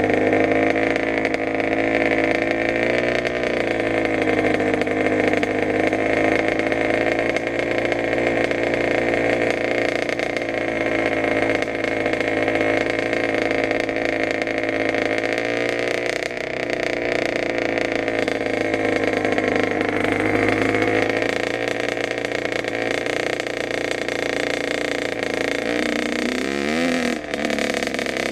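Kawasaki KX100's two-stroke single-cylinder engine running steadily under way on a dirt bike, heard from the rider's helmet, its note wavering a little. Near the end the engine note dips sharply and comes back up.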